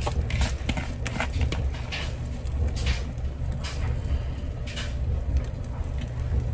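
Soft, scattered taps and rustles as pieces of canned mushroom and olive are dropped by hand from a plastic bowl onto eggs setting in a frying pan, over a steady low hum.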